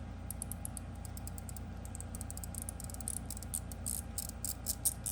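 Handheld slider fidget being worked back and forth, giving a run of light, sharp clicks from its sliding plates and springs. The clicks are irregular and sparse at first, then come faster and thicker in the second half.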